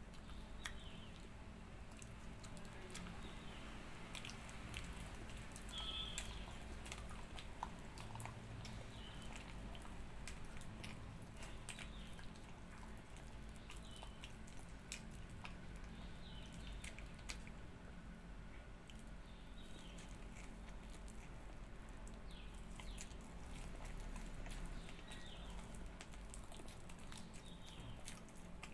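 Mouth sounds of eating ripe palmyra palm (tala) fruit: wet sucking, biting and chewing of the fibrous pulp, with many small smacks and clicks.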